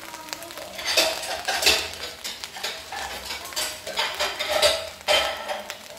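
A metal utensil scraping and clinking against cookware while stirring food, in irregular strokes about two a second, each with a brief metallic ring.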